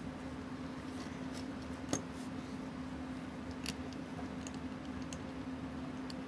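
A few small, sharp metal clicks of watch-repair tools handling movement parts, the sharpest a little under two seconds in, over a steady low hum.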